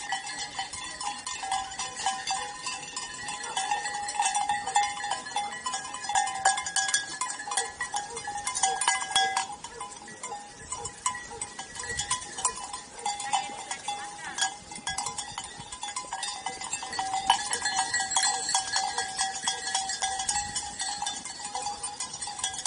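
Bells on a grazing flock of sheep clanking and ringing in a continuous jangle of sharp clinks and held tones. It swells louder twice as the sheep move about.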